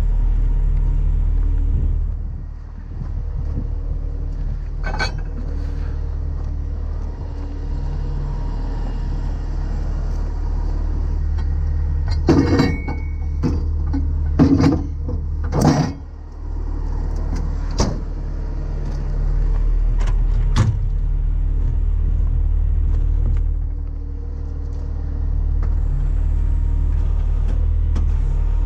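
Heavy truck's diesel engine idling steadily, with a handful of sharp metal clanks and knocks around the middle.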